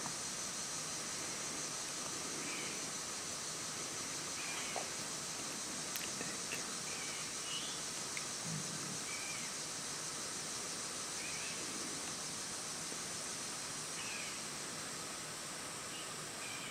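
Steady, high-pitched chorus of crickets and other insects, with scattered short bird chirps every couple of seconds.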